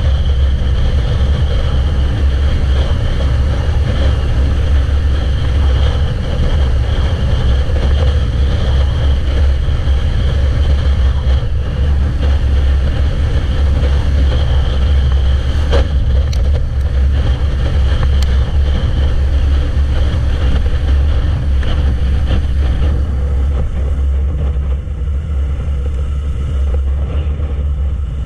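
Sport motorcycle riding at a steady road speed: a Yamaha YZF-R3's parallel-twin engine running under heavy wind rumble on the bike-mounted microphone. It eases a little near the end as the bike slows.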